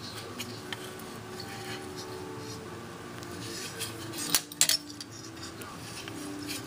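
Small metallic clicks and scraping from a kerosene lamp's eagle burner as the new ribbon wick is wound up and down; the winder is still stiff on the dry wick. A few sharper clinks come about four and a half seconds in.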